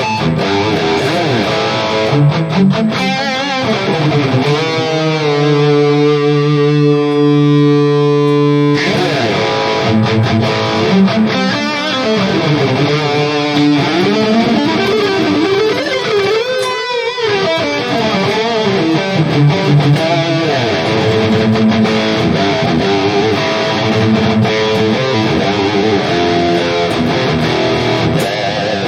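Distorted electric guitar played through a digital modeling unit's high-gain Savage 120 amp model. It plays riffs and chords, with a chord held ringing for a few seconds about a third of the way in and a bend in pitch past the middle.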